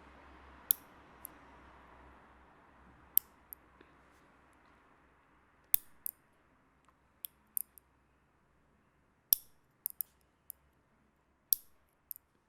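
Nails being cut: a series of sharp, crisp snips at uneven intervals, often in quick pairs, about a dozen in all.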